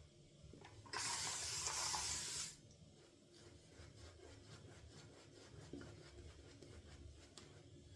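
Shaving brush (a 26 mm Maggard mixed-knot brush) working lather. A loud, rough hiss lasts about a second and a half near the start, then comes a quick run of faint brushing strokes.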